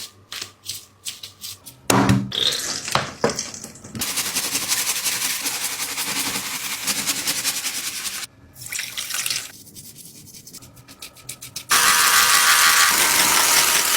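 A squishy toy being washed: short scrapes and clicks, then water running in two stretches, the second louder one starting near the end.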